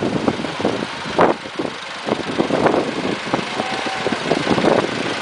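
Engines of a Chevrolet pickup truck and a line of farm tractors running at low speed as they drive slowly past.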